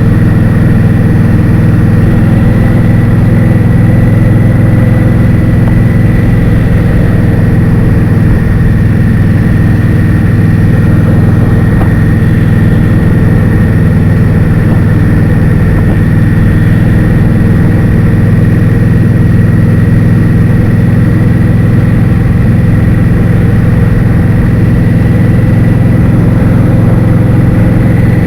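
Steady wind buffeting on the microphone of a moving motor scooter, with the scooter's engine running underneath and a thin steady whine.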